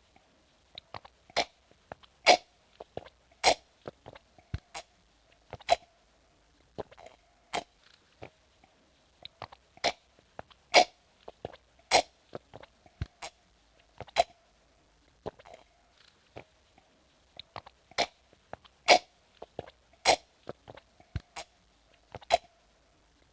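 A person sipping and swallowing water from a glass: a long irregular series of short, sharp wet mouth and gulping sounds, about one or two a second.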